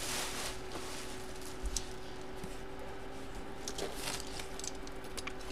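Quiet handling of a cardboard box, with a few faint taps and rustles, over a steady faint hum.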